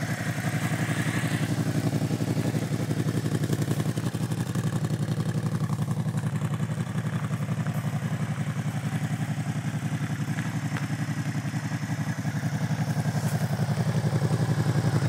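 2009 Suzuki SFV650 Gladius's 645 cc V-twin idling steadily, a throaty, even pulsing beat.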